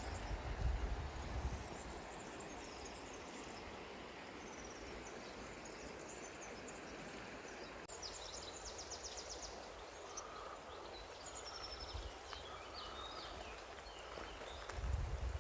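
Outdoor ambience: a steady rushing hiss with small birds chirping, a quick trill about eight seconds in, and low buffeting on the microphone near the start and again at the end.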